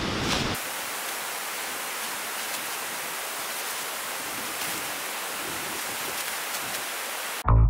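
Steady rushing hiss of outdoor background noise with a few faint rustles. Guitar-and-bass music cuts in abruptly right at the end.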